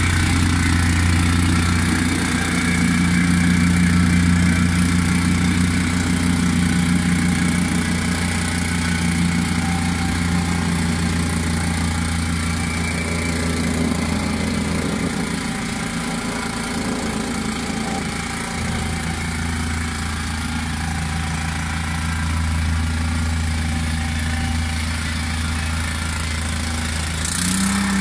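Petrol vibratory plate compactor running steadily, its small engine driving the vibrating plate as it compacts the base for paving slabs. The engine's pitch steps up near the end.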